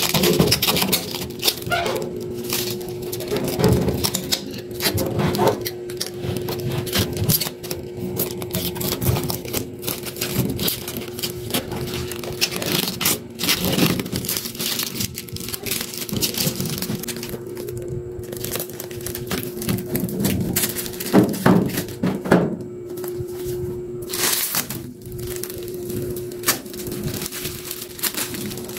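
Thin plastic protective film crinkling and crackling as it is peeled off a stainless-steel oven body, in irregular rustles and sharp crackles.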